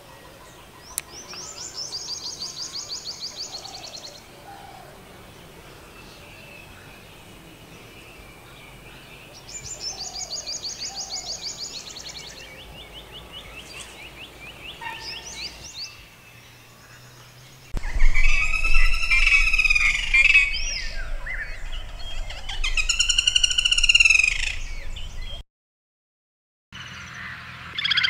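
Birdsong from two different birds. First a small bird gives a fast, high trill twice, about eight seconds apart, with softer chirps between. Then, from about eighteen seconds in, a different bird gives loud, rich calls that rise and fall in arches, cut off suddenly near the end by a second of silence.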